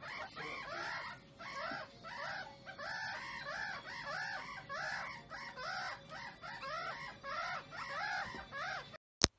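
Young meerkats calling: a rapid run of short chirps that rise and fall, from several animals overlapping, about three a second. The calls cut off near the end, followed by one sharp loud click.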